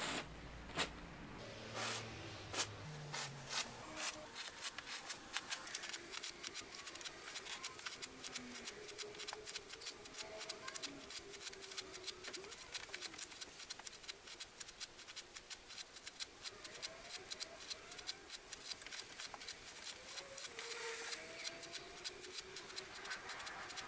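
Facial tissues pulled one after another from a Nepia tissue box, each pull a short crisp papery snap. A few separate snaps come first, then from about four seconds in they follow in a rapid, nearly continuous run.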